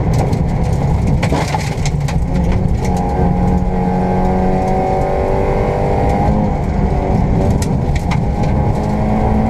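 Škoda Fabia 1.4 rally car at full effort on a gravel stage, heard from inside the cabin: the engine runs hard and climbs in pitch, then drops at a gearchange about six seconds in. Stones crackle against the underbody at moments.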